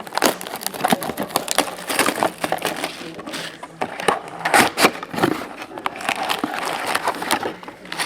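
Foil wrappers of trading card packs being torn open and crinkled, with irregular sharp crackling and rustling.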